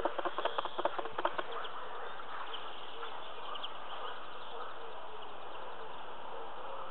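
Spawning carp thrashing and splashing in the shallows at the reed edge, a quick run of splashes over the first second and a half. After that there is only a steady outdoor hiss with faint, repeated short chirps.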